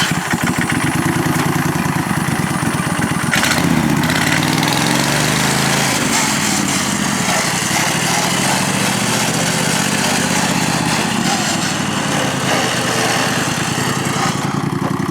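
Racing lawn tractor engine running hard under throttle, its pitch rising and falling as it is driven flat out for a top-speed run.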